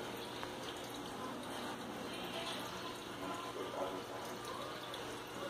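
Steady trickle of aquarium water, with faint voices in the background.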